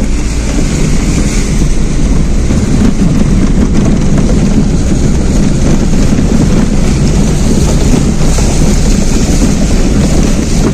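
Car engine pulling hard in first gear through a river ford, with water rushing and splashing against the body and wheels, heard from inside the cabin. Loud and steady throughout.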